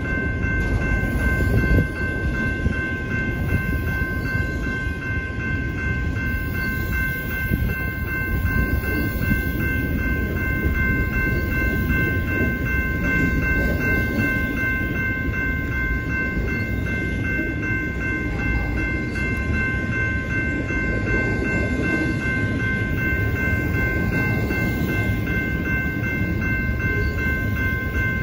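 Loaded intermodal freight train rolling past at close range: a steady rumble of wheels on rail as the double-stack container cars and trailer flatcars go by, with a steady high-pitched whine running over it.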